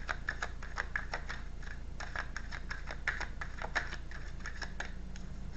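Tarot cards being shuffled by hand: a quick, irregular run of light card clicks and flicks that stops near the end.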